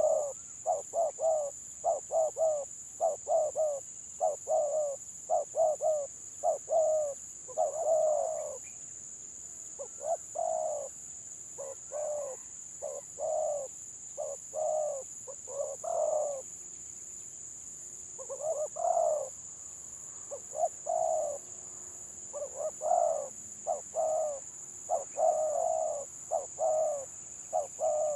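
Spotted doves cooing in runs of short, clipped notes, the stuttering 'gagap' coo style, with a short pause about two-thirds of the way through.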